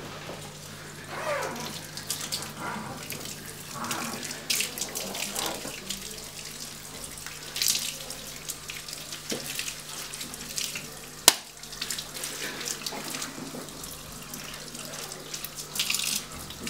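Handheld shower sprayer running water over a head of hair into a salon sink, with uneven splashing. A single sharp click stands out about two-thirds of the way through.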